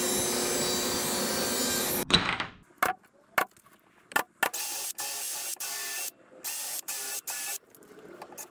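A panel saw runs and cuts a triangular corner brace from 3/4-inch plywood, stopping about two seconds in. It is followed by a series of sharp single clicks from a nail gun fastening the brace into the cabinet corner.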